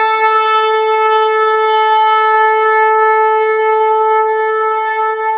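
A shofar sounding one long, steady blast on a single held note, with a lower note dying away in the first half-second.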